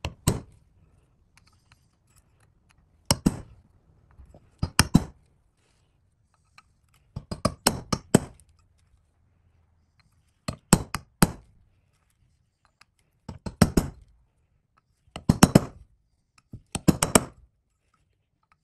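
Hammer striking a steel pin punch held on the screws of a Hinson aftermarket clutch basket, in short bursts of sharp metallic taps: about eight bursts of a few quick strikes each, a second or two apart. The screws are being tapped tight after a dab of Loctite.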